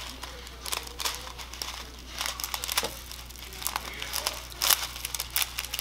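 Crinkling of a thin clear plastic bag of foam beads as it is squeezed and tipped to pour the beads out, a steady run of irregular sharp crackles.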